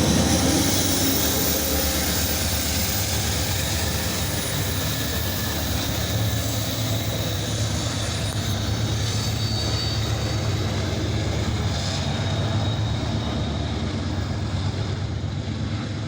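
Norfolk Southern freight train rolling past: a steady rumble and hiss with a low hum underneath.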